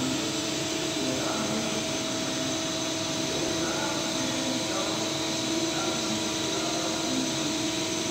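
A Mazak Quick Turn Nexus 350M CNC lathe running under power: a steady machine hum and hiss with a few unchanging whining tones.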